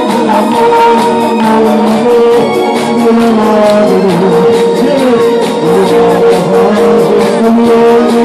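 Amplified live music through PA speakers: an electronic keyboard holding chords over a steady programmed beat, with a man singing into a microphone.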